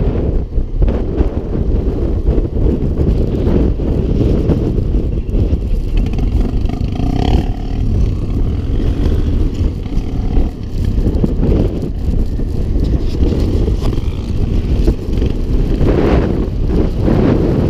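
Yamaha Grizzly 700 quad's engine running as it rides along a sandy dune track, with wind buffeting the microphone.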